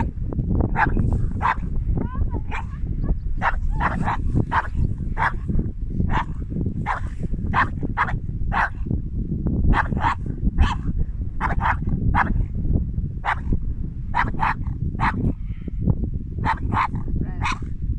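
A dog barking over and over, roughly one to two barks a second with brief gaps, agitated by a paraglider flying overhead. Heavy wind rumble on the microphone underneath.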